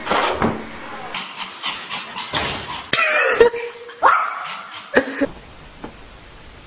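A small dog, a Pomeranian, barking several times in short barks, with a person's voice mixed in. After about five seconds only a faint hiss remains.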